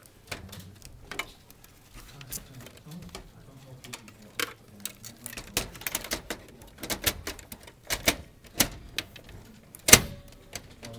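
Irregular clicks and knocks of a CD drive being handled and fitted into the metal drive bay of an open desktop computer case, with cables being pushed onto it. The knocks come thicker from about halfway, and the sharpest comes near the end.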